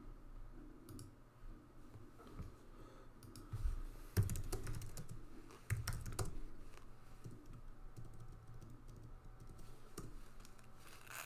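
Computer keyboard being typed on in irregular spurts of keystrokes, with a few louder clicks about four and six seconds in.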